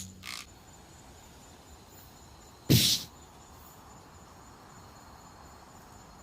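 Insects trilling steadily in high thin tones, with a brief loud rush of noise about three seconds in, like a rustle or knock against the microphone.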